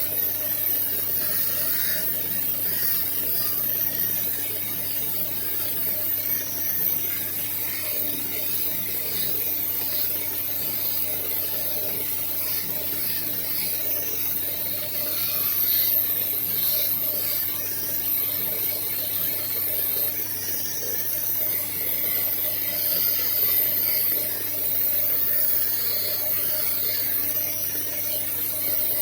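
A small tool carving soft stone: irregular scraping and grinding over a steady hum.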